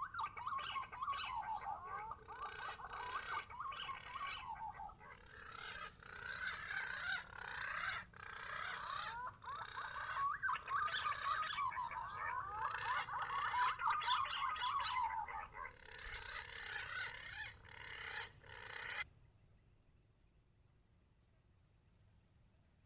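Green pigeons (punai) calling: many overlapping fluty whistles that glide up and down, stopping abruptly about nineteen seconds in. A steady high insect drone runs underneath and is left on its own after the calls stop.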